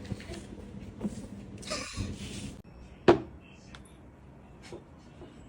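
Household knocks and rustling: a couple of seconds of rustling, then one loud sharp knock about three seconds in with a short ring, followed by a few faint clicks.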